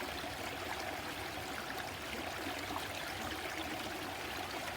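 A small stream running and trickling steadily.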